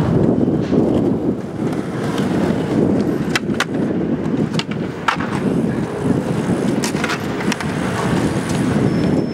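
Skateboard wheels rolling on smooth concrete, a steady rumble, with several sharp clacks of the board in the middle part.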